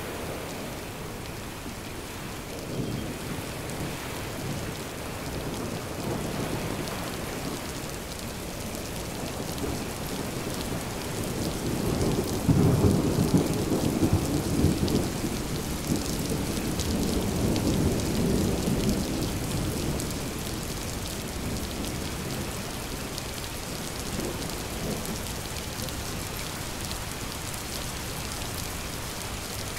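Steady rain with a long roll of thunder that builds about ten seconds in, is loudest from roughly twelve to fifteen seconds, swells once more and fades out by about twenty seconds.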